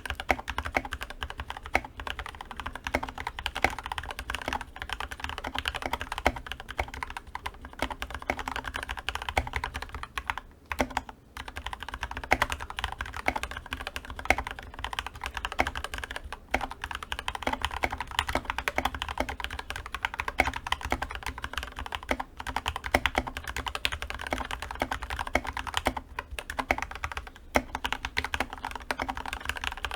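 Continuous typing on a GK61XS mechanical keyboard with Gateron Milky Yellow linear switches, lubed with Krytox 205g0 and filmed, under PBT keycaps: a dense, steady stream of key clacks with a brief pause about ten seconds in.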